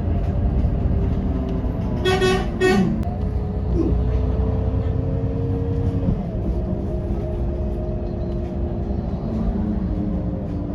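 Two short vehicle-horn toots about two seconds in, over the steady low rumble of a running vehicle.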